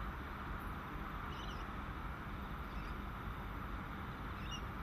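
Steady low rumble and hiss of distant airport ambience, carrying far-off jet aircraft noise, with two faint short chirps, one about a second and a half in and one near the end.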